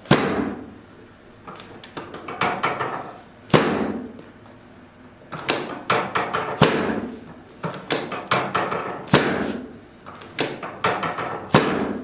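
Chiropractic drop table's sacral drop section snapping down under repeated quick thrusts on the sacrum: a series of sharp clacks about once a second, some much louder than others, each with a short rattle after it.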